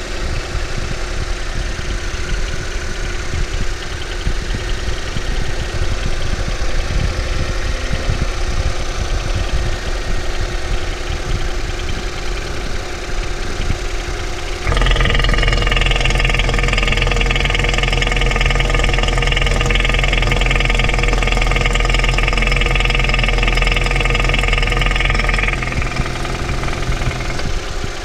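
Ford 1.5 EcoBoost turbocharged four-cylinder running with a rapid, uneven knock from inside the engine, on a low-mileage car. About halfway it changes abruptly to a louder, steady hum with a high whine, and it settles back near the end.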